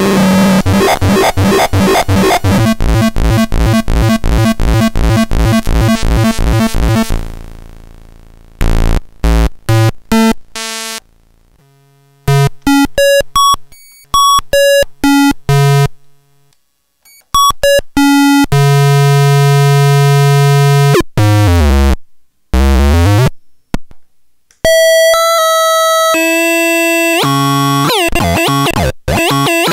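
Homemade circuit-bent noise synthesizer with a step sequencer: a dense, fast pulsing buzz for the first several seconds that fades away, then chiptune-style bleeps jumping between pitches with short silences between them, one longer held tone, and a few swooping pitch glides near the end.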